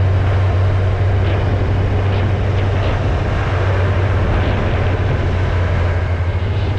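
Motorcycle engine running at a steady cruise with a constant low drone, under heavy wind rush from riding.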